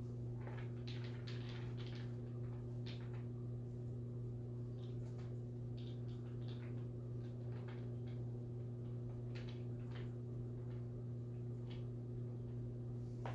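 Pages of a tarot guidebook being turned: faint, scattered rustles and light taps over a steady low electrical hum.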